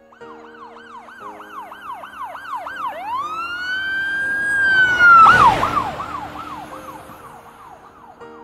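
Siren yelping rapidly, then changing to a long rising wail that holds. About five seconds in comes a loud rush of noise, after which the yelp resumes slightly lower in pitch and fades away, as a siren does when it passes.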